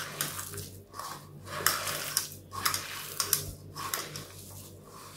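Bare hands squeezing and mixing a moist mash of grated boiled potato, chopped onion and spices in a bowl: a run of irregular soft squelching strokes.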